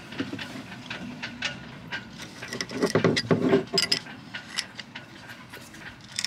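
Two open-end spanners clinking and scraping on a steel rigging terminal as its threaded body is screwed tight, a string of small metallic clicks and knocks that is busiest about three to four seconds in.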